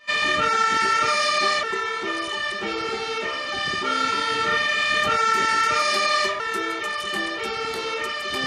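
Fire engine siren sounding, alternating back and forth between a higher and a lower note.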